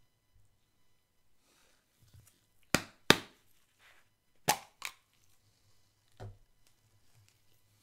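Can of spray whipped cream being handled: two pairs of sharp knocks, the first about three seconds in, then a softer knock near the end.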